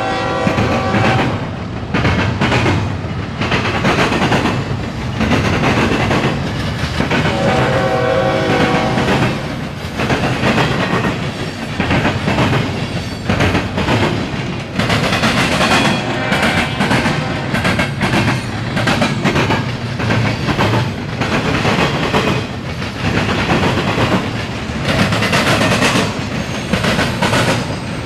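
Two freight trains passing at close range, a Norfolk Southern double-stack intermodal train and a CSX covered-hopper grain train: a loud, steady rumble and clatter of wheels on rail. A train horn sounds briefly about a second in and again about eight seconds in.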